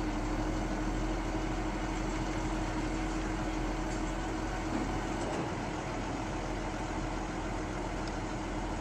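Engine of a truck-mounted crane running steadily with a steady hum while the boom hoists a wooden utility pole.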